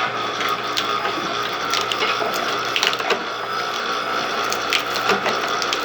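Automatic cashew nut cutting machine running, with a steady mechanical hum and irregular sharp clicks and clacks.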